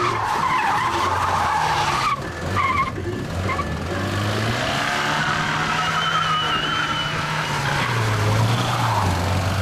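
Škoda 100/110 saloon's engine revving hard as the car is driven flat out through a tarmac corner, its pitch climbing, holding and dropping with the throttle and rising again near the end. The tyres squeal briefly in the middle of the slide.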